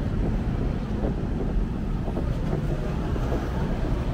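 Street ambience of a busy road: a steady rumble of passing traffic, with wind on the microphone.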